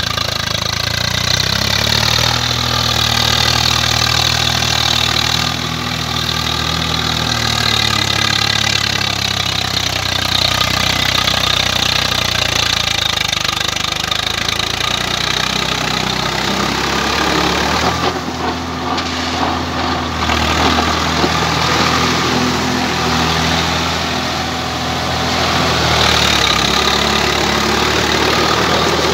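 Swaraj 744 FE tractor's three-cylinder diesel engine running steadily under load while its rotavator churns wet soil. The engine note eases and picks up again a few times.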